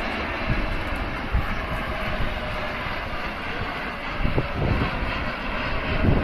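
Fixed-wing aircraft engine running steadily as an airplane flies by, with faint steady tones under an even rush of noise.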